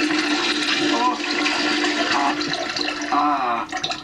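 A long, steady stream of urine splashing into toilet water, fading near the end, with brief faint voices under it.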